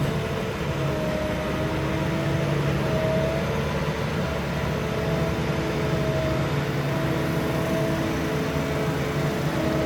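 Grimme Varitron 270 potato harvester working, its engine and machinery giving a steady drone with a hum whose pitch wavers slightly.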